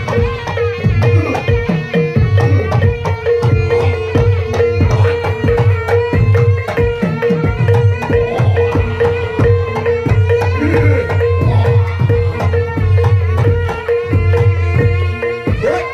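Traditional Javanese barongan accompaniment music: hand drums beat a fast, busy rhythm under a steady held tone and pitched melodic lines.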